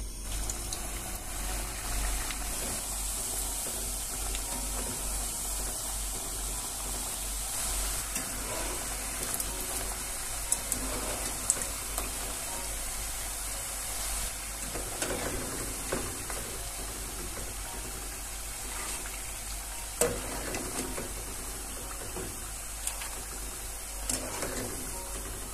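Potato sticks sizzling steadily as they fry in hot oil, with a few sharp clicks partway through.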